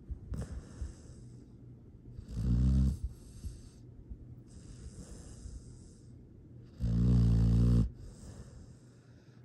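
Dog snoring while asleep: two low snores about four seconds apart, each under a second long, with soft breathing between them.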